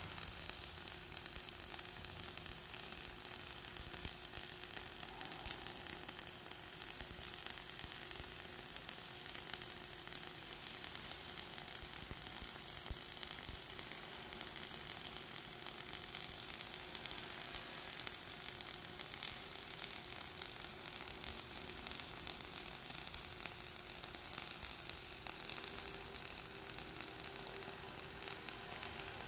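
Flux-cored arc welding on carbon steel plate: the arc crackles steadily and without a break as the bead is run, throwing spatter.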